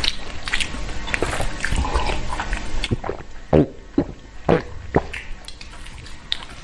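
Close-up eating sounds: wet smacks and clicks of chewing and of rice being mixed by hand, a few sharper ones around the middle, over background music.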